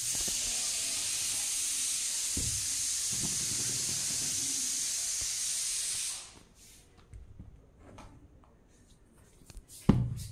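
A steady high-pitched hiss that cuts off suddenly after about six seconds, followed by faint scattered rustles and clicks and one sharp thump near the end.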